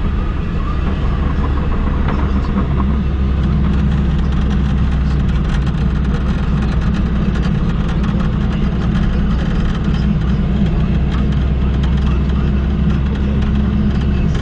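A car's engine and tyre noise heard from inside the cabin while driving: a steady low drone.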